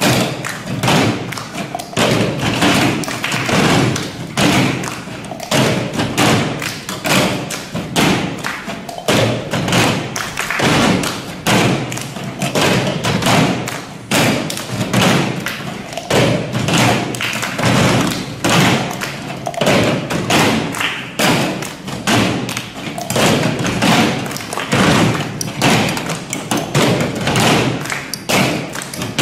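A percussion ensemble playing a cup rhythm: many plastic cups thumped and tapped on a tabletop in unison, mixed with hand claps, in a steady repeating pattern.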